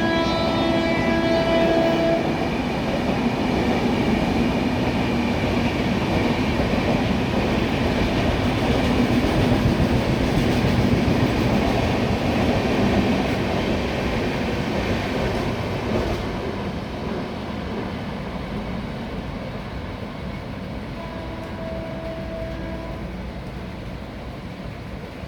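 WAP-7-hauled express train passing at speed, its coaches rushing and clattering over the rails. A locomotive horn sounds for about two seconds at the start, the rush fades after the middle, and a fainter horn sounds briefly near the end.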